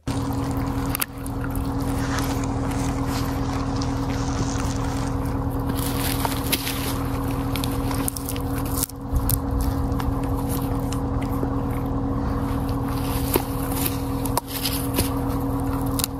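Small power saw's motor running steadily at one pitch, with a few brief dips.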